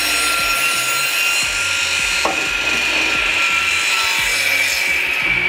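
Bäuerle pendulum (swing) crosscut saw running with a steady high blade whine as it is pulled through a board. The cutting noise eases off about five seconds in as the cut finishes, while the blade keeps spinning.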